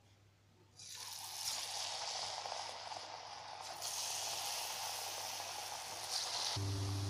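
Vada dough sizzling as it goes into hot oil to deep-fry. The sizzle starts suddenly about a second in and swells again about halfway through. A low steady hum joins near the end.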